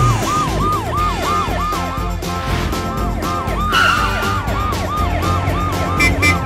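Police siren in a fast yelp, its pitch rising and falling about three times a second, over background music with a steady beat.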